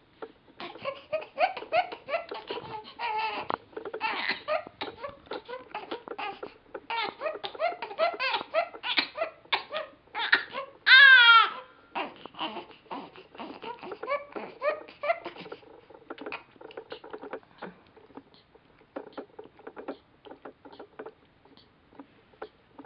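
Five-week-old baby fussing with many short grunting, whimpering cries, then one loud cry about halfway through. After that the cries grow quieter and fewer as he takes the bottle.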